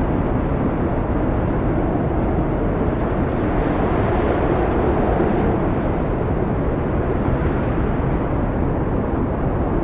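Howling, gusty mountain wind: a steady deep rushing noise that swells a little about four to five seconds in.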